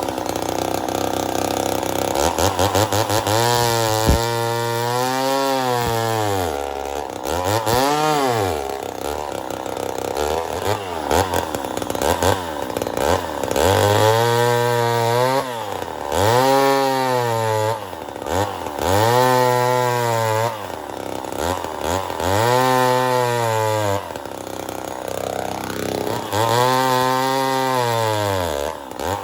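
Ported Poulan 245A two-stroke chainsaw revved over and over: the engine note climbs to high revs, holds briefly and drops back toward idle, about ten times, every two seconds or so.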